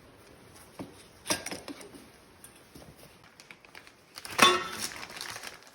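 Scattered clicks and knocks of tools and metal motorcycle parts being handled during a handlebar removal, with one louder metallic clank that rings briefly about four and a half seconds in.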